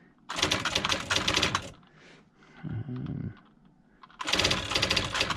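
IBM Wheelwriter 30 electronic daisy-wheel typewriter typing: two rapid runs of strikes, the first about a second and a half long, the second starting near the end, with a pause between.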